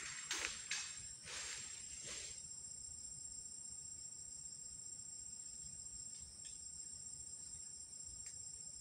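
A steady, high-pitched insect chorus drones on without a break. Three brief rustles come in the first two and a half seconds.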